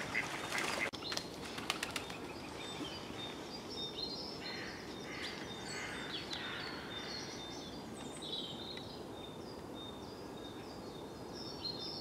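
Small songbirds calling with short, high chirps scattered throughout, over a steady outdoor background, with a quick run of sharp clicks in the first second or two.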